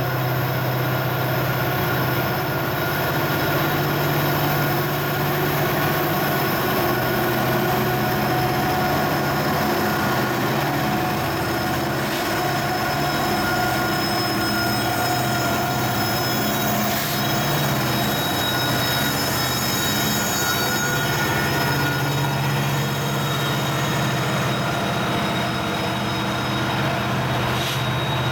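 Loaded coal train grinding up a curving grade, its steel wheels squealing against the rail in thin high tones that come and go over a steady low mechanical hum.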